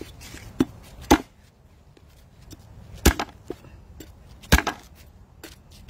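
Large knife chopping through a mutton snapper's head on a wooden cutting board: three hard blows about one and a half to two seconds apart, with lighter knocks between, as the head is split in half.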